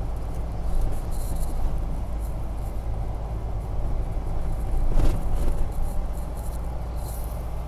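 Steady road and engine noise of a car driving, heard inside the cabin, with a brief thump about five seconds in.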